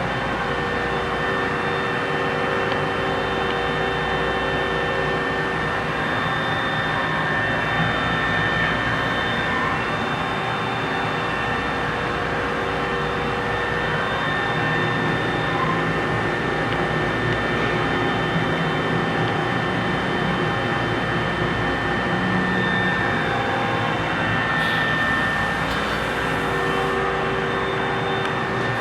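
Lathe running steadily while turning a large pot-bearing part: an even mechanical drone with several steady whining tones.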